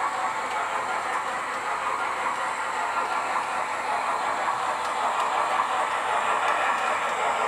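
OO gauge model of a Bulleid Merchant Navy class 4-6-2 steam locomotive running steadily along the track, its DCC sound decoder playing steam locomotive sounds through a small speaker over the noise of the motor and wheels on the rails.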